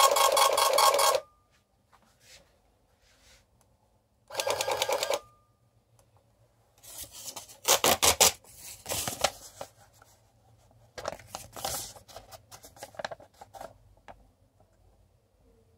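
Small roll-paper printer attached to a Fidelity Elegance Chess Challenger printing the game's move list in rapid, even mechanical strokes, a test of the board's repaired printer circuit; it stops about a second in and runs again briefly around the middle. Then the paper strip is torn off and handled, making irregular ripping and rustling.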